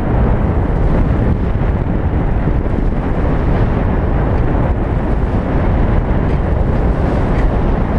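Steady wind rumble on the microphone over the rush of water past a sailing yacht's hull in a choppy sea.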